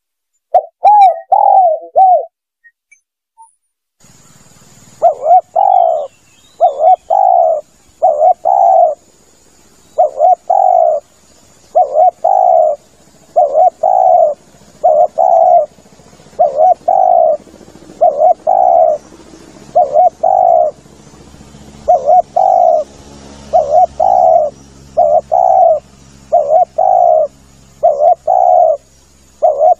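Spotted dove (tekukur) cooing, a recorded lure call: a short phrase about a second in, a brief silence, then a long run of repeated coo notes in short groups over faint background hiss.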